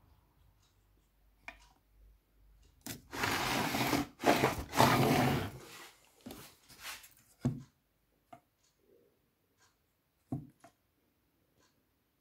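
Rubbing and scraping for about three seconds from parts of a disassembled chainsaw being handled, followed by several light knocks and clicks as the parts are moved and set down.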